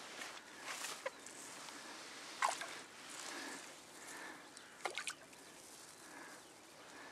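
A few faint, short splashes of a hooked roach thrashing at the surface of the river as it is drawn toward the landing net, over a quiet outdoor background.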